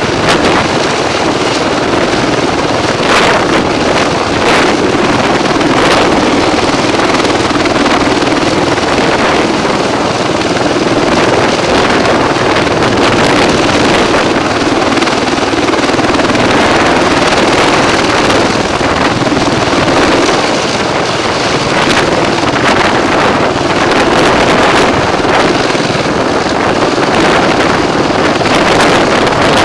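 MH-53 Pave Low heavy helicopter hovering close by: a loud, steady rush of twin turboshaft engines and main rotor, with rotor downwash gusting over the microphone.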